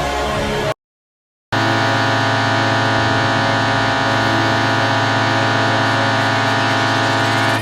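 Ice hockey arena goal horn sounding one long, steady, deep blast. It starts about a second and a half in, after music cuts off into a moment of silence.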